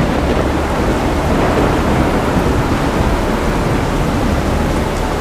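Storm wind and rain of a passing thunderstorm front, a loud steady roar with no letup.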